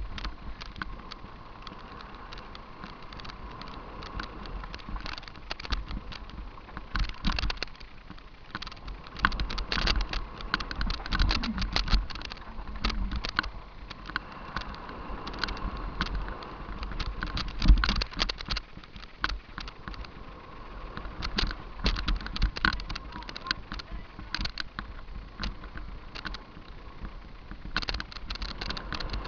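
Downhill mountain bike descending a rough dirt trail, heard from a camera riding on it: a constant run of rattles, clicks and knocks from the bike over bumps, stones and ruts, with tyre noise on loose dirt and a low rumble. The hardest knock comes about eighteen seconds in.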